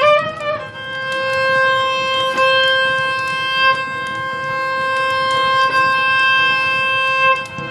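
A violin slides up into a single long held note and sustains it for about six seconds, with a few plucked strokes of oud or çümbüş underneath, in a Turkish fasıl instrumental passage.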